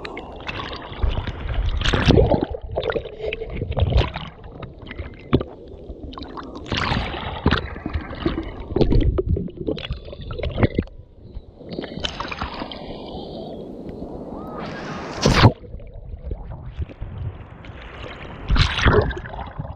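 Shallow sea water lapping and sloshing around a camera at the waterline, with irregular splashes and gurgles and low, muffled rumbles of water against the housing; one sharper splash comes about fifteen seconds in.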